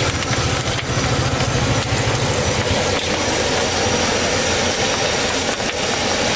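A small engine idling close by, a low steady throb that fades out about two and a half seconds in, over a constant hiss of street noise.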